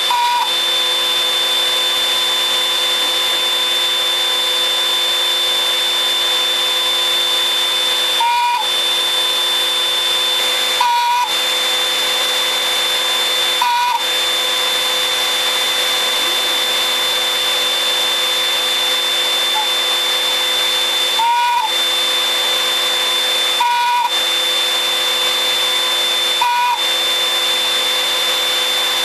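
Router spindle of a homemade CNC machine running with a steady whine while drilling a wooden board. About six times it briefly dips and wavers in pitch.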